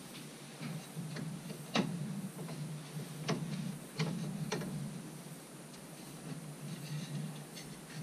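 A handful of sharp wooden knocks and clicks as a small wooden workpiece is handled and set against a drill press table and fence, the loudest about two seconds in and between three and four and a half seconds in, over a steady low hum.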